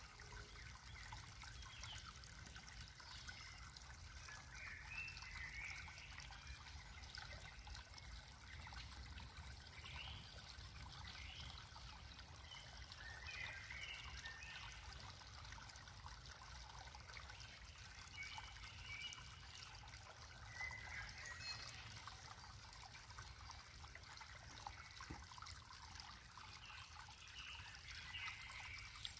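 Faint trickle of water, with small gurgles coming and going every few seconds.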